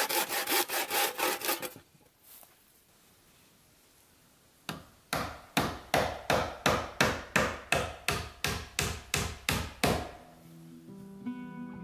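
Handsaw cutting across a wooden board in quick, even strokes that stop about two seconds in. After a pause, a claw hammer nails a wooden cladding board, about three steady blows a second for some five seconds.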